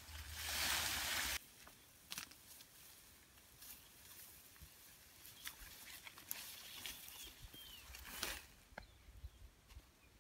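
Leafy branches rustling and feet crunching through dry leaf litter, loud for the first second and a half and then stopping abruptly. After that come faint scattered rustles and twig clicks of walking through grass, with a brief louder rustle of foliage about eight seconds in.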